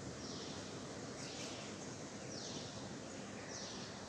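A bird calling over and over, each call a quick downward-sliding note repeated about once a second, above a steady background hum of outdoor noise.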